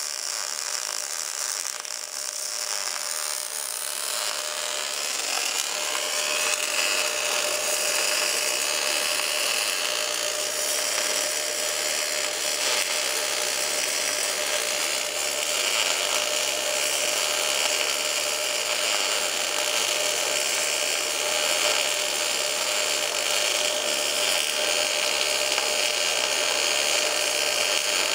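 Fronius TPSi MIG/MAG welding arc running steadily on a pipe root pass: a continuous crackling hiss with a faint constant tone under it, growing slightly fuller about four seconds in.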